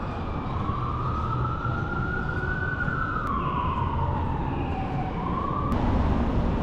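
Emergency vehicle siren wailing, its pitch slowly rising and falling, over a steady low rumble of street traffic; the siren cuts off suddenly about a second before the end.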